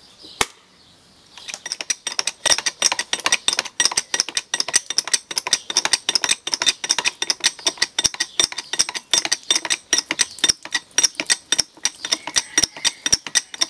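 Hand-pumped hydraulic bottle jack: its pump handle works up and down with a rapid metallic clicking and rattling, starting about a second in after a single click. The jack is building pressure to squeeze wet pulp into a briquette.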